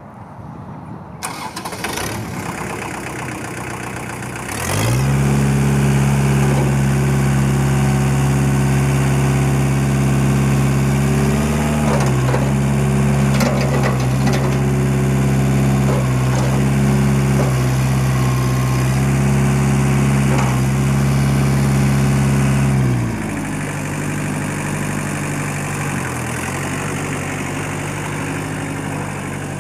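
Daedong L3502 tractor's three-cylinder diesel engine at a low idle, throttled up about five seconds in and held at high revs. Its pitch sags briefly a few times as the loader hydraulics take load lifting the bucket. About 23 seconds in it is throttled back to a lower, steady speed as the tractor drives off.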